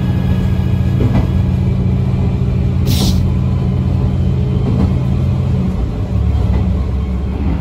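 KiHa 120 diesel railcar heard from inside, its engine droning steadily, with a short hiss of air about three seconds in. Near six seconds the engine note drops to a lower rumble.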